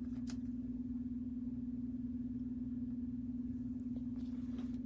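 A steady low-pitched hum on a single unwavering tone, with a few faint clicks.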